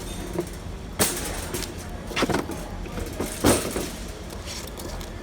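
Sharp plastic clicks and knocks as a small-parts organizer case is handled, about three of them a second or so apart, over steady store background noise.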